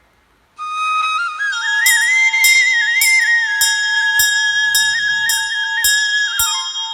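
Background music starting about half a second in: a flute melody over a steady held note, with a light percussive beat a little under twice a second.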